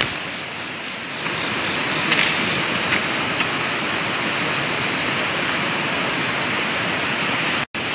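Steady rushing noise with a thin high whine above it, cutting out for an instant near the end.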